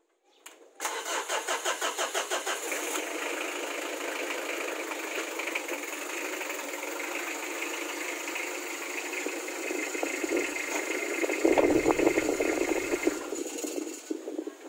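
Mitsubishi Adventure's engine being started: the starter cranks with a quick pulsing for about two seconds, then the engine catches and runs steadily. It grows louder about eleven seconds in as the vehicle is driven, then falls away near the end.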